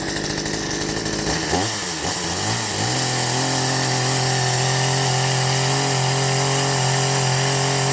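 Ferrex 45cc two-stroke petrol chainsaw running. It runs lower for about a second and a half, is revved up and down unevenly, and from about three seconds is held at a steady higher speed.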